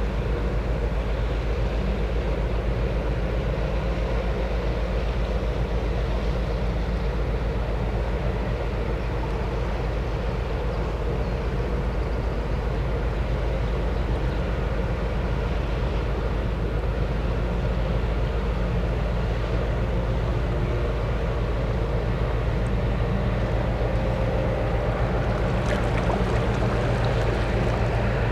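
Container ship's engine running with a steady low drone as the ship passes close by.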